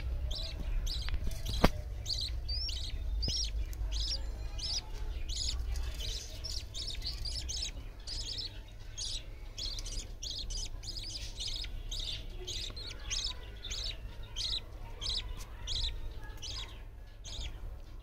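Budgerigars chirping in their nest pot: a steady run of short, high chirps, two or three a second, over a low steady hum.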